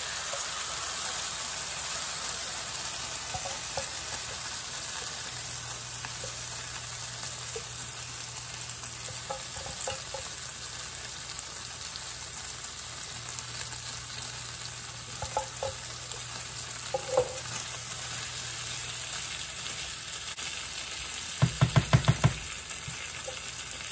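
Diced chicken frying in olive oil in a skillet, a steady sizzle, while condensed cream of chicken soup slides from the can into the pan. Near the end comes a quick run of about eight sharp knocks.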